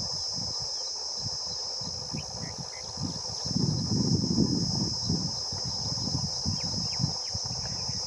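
Distant Indian Railways diesel-hauled passenger train approaching: an uneven low rumble that swells a few seconds in, broken up by wind buffeting. Over it runs a steady high-pitched insect drone, with a few short bird chirps.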